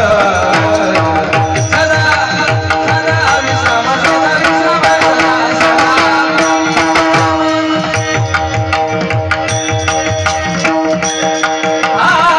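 Devotional kirtan accompaniment playing between sung lines: a hand drum in fast rhythmic strokes over a steady held drone, with many sharp metallic clicks. The singing voice comes back in near the end.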